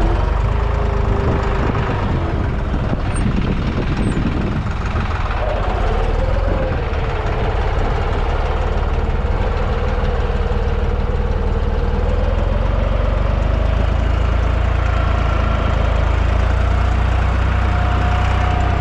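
Deutz-Fahr 55F tractor's diesel engine running steadily, with a fainter whine that wavers up and down in pitch; the engine note swells a little about two-thirds of the way through.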